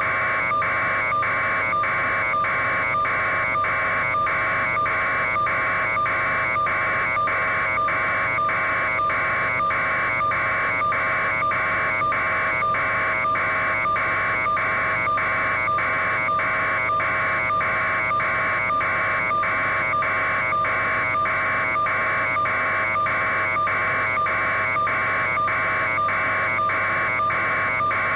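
A steady electronic-sounding buzz with a constant hum underneath, pulsing evenly a little under twice a second without change.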